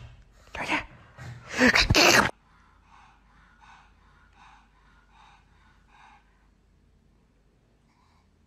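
Pug giving two loud snorting, sneeze-like blasts in the first two seconds. These are followed by a few faint, regular breathing puffs about one every three-quarters of a second that die away.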